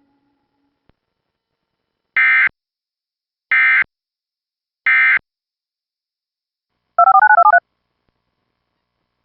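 EAS SAME end-of-message data bursts: three short, identical digital screeches sent about a second and a half apart, marking the end of the alert. A quick run of about eight electronic beeps at changing pitches follows near the end.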